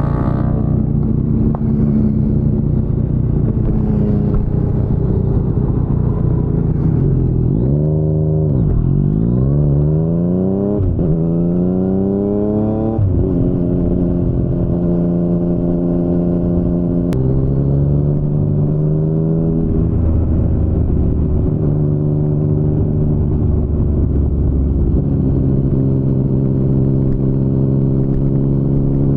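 2019 Yamaha MT-09's 847 cc inline-three engine through an Akrapovic carbon full-system exhaust, under way. It runs steadily, then about seven seconds in the revs climb three times in quick succession, each climb cut off by a sudden drop as the rider shifts up through the gears. It then settles back to a steady cruise.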